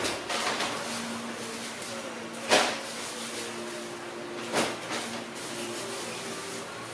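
Grocery packages being handled and set down on a floor: a few sharp knocks, the loudest about two and a half seconds in, with plastic packaging rustling between them over a faint steady hum.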